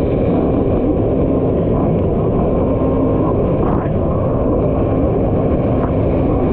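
Kawasaki SX-R 1500 stand-up jet ski's four-stroke inline-four engine running hard and steady at racing speed.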